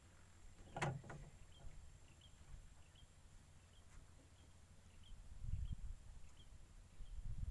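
Quiet outdoor ambience in a wooden boat: a sharp click about a second in, a faint high chirp repeating about twice a second, and low knocks and rumble near the end as fishing tackle is handled.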